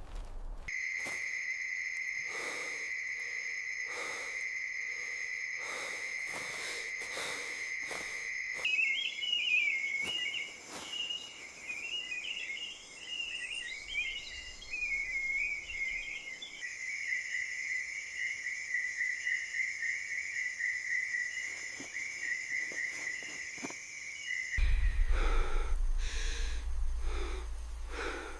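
High-pitched chirring wildlife sound, like insects or birds. It starts as a steady shrill trill, changes abruptly about nine seconds in to warbling chirps, and then to a fast-pulsing trill. Faint regular soft knocks run underneath, and a low rumble with louder knocks comes in near the end.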